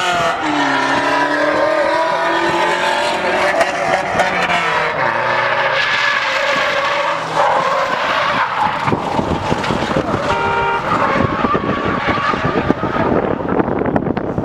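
Car engine revving hard, its pitch rising and falling, with tyre squeal and skidding as a car drifts sideways on asphalt. A brief steady tone sounds about ten seconds in.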